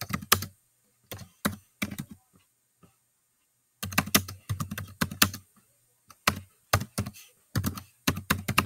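Typing on a computer keyboard: runs of quick key clicks, broken by a pause of about a second and a half early on.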